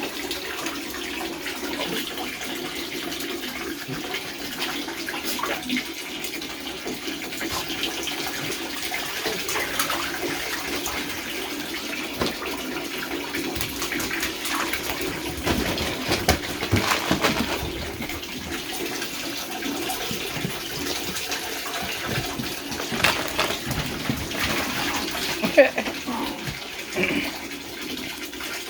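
Water running from a bathtub tap into the tub, with scattered splashes and knocks as puppies play in the water.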